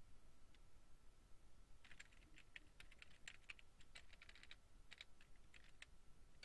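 Computer keyboard being typed on: a quick, faint run of keystroke clicks that starts about two seconds in.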